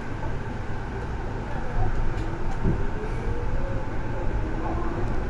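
Chichibu Railway 7500-series electric train running slowly as heard from the cab, a steady low rumble with a motor whine rising in pitch as it picks up speed.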